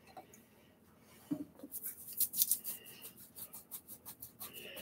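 A toothbrush scrubbing a wet vinyl reborn doll head to get air-dry paint off. The quick scratchy strokes come about four or five a second and start about a second and a half in.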